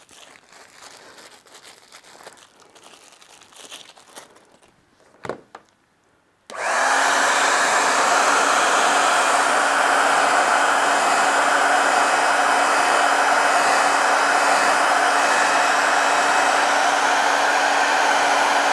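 Faint handling rustles and a single click, then about six and a half seconds in a handheld hot-air blower switches on and runs steadily, a loud rush of air over a steady motor hum. It is warming leather gloves so that Sno-Seal wax melts into the leather.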